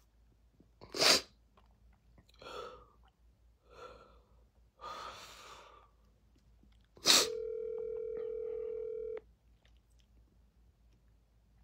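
Phone ringback tone heard through a phone's speaker: a click about seven seconds in, then one steady two-second ring. Earlier there is a short, sharp breath noise about a second in, followed by a few softer breaths.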